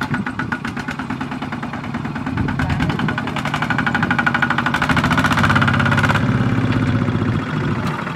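Kubota walking tractor's single-cylinder diesel engine chugging with rapid firing pulses, hitched to a trailer loaded with rice sacks. It revs up about two seconds in, runs hard for several seconds, and drops back near the end.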